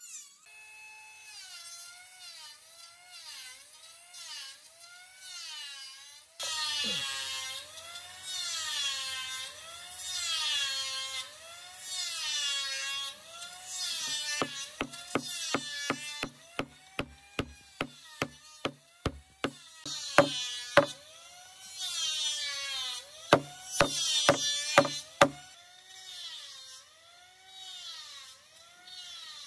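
A power tool's motor whining as it is worked against wood, its pitch dipping and rising about once a second. About halfway in, a run of sharp knocks, roughly two a second, joins it for several seconds.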